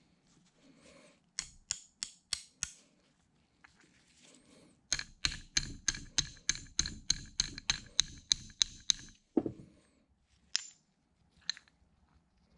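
Small ball-peen hammer tapping on the metal of a coolant pump's check valve assembly. First come five quick taps, then a longer run of about seventeen evenly spaced taps at roughly four a second. A duller knock follows near the end, then a couple of single clicks.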